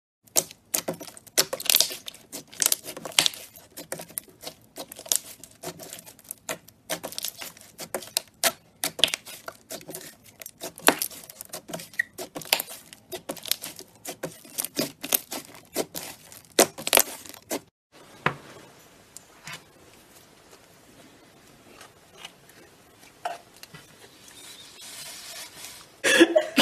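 Slime being squeezed and pressed by hand, making dense sticky clicks, pops and crackles. About two thirds of the way through the crackling stops abruptly and gives way to quieter handling with only scattered clicks.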